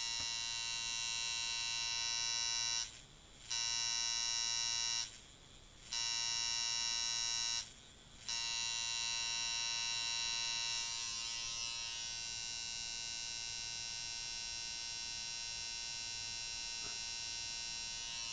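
Rebuilt Cain Avionic coil tattoo machine, with a copper-nail contact, buzzing on 4.5 volts as a long, lazy, slow-hitting machine set for colour work. It is cut off briefly three times in the first eight seconds, then runs steadily.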